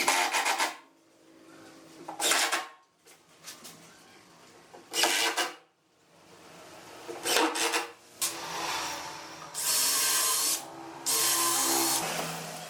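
Wood being worked by hand with an abrasive or rasping tool in separate strokes: about six scraping strokes, the last two longer and steadier, with fainter rubbing between them.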